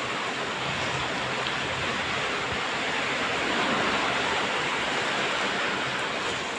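Steady rain falling: an even, continuous hiss.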